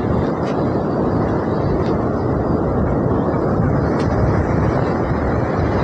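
Heavy surf breaking and strong wind buffeting the microphone, a steady, loud rush.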